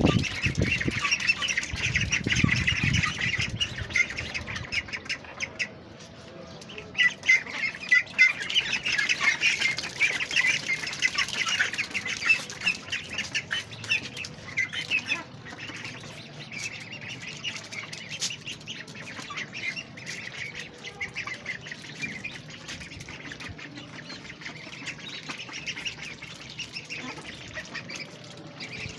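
A flock of ducks calling, many quacks overlapping. The calling is busiest in the first few seconds and again from about seven to twelve seconds in, then thins out.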